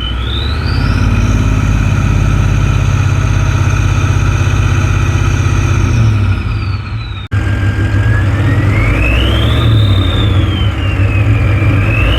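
Ford 7.3 IDI V8 diesel revving with the high whistle of an R&D stage 1 drop-in turbo spooling over a deep engine rumble. The whistle climbs steeply in the first second, holds high for several seconds and falls away; after a short break it rises and falls again, then climbs once more near the end.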